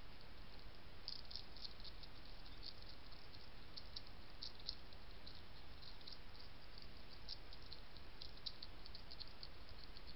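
European hedgehog crunching dry kitten food from a dish: irregular runs of small, crisp clicks over a steady hiss.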